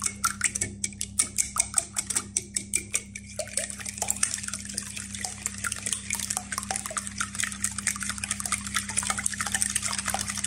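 Wire whisk beating eggs and oil in a glass bowl: the wires click against the glass and the liquid sloshes in a steady rhythm, about three to four strokes a second at first, quickening into a near-continuous patter after about four seconds.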